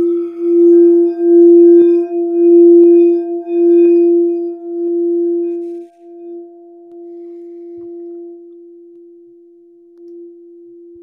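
Quartz crystal singing bowl sung by circling a rubber-ball mallet around its rim, giving one steady pure note, which the owner believes is an F. The tone swells and pulses while the mallet circles for about six seconds, then rings on alone, quieter and slowly fading.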